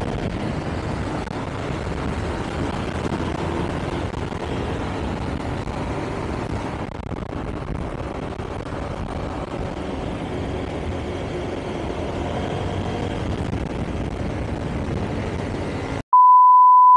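Steady engine and road noise of a motor scooter being ridden through city traffic. Near the end it cuts off abruptly into a loud, steady test-tone beep.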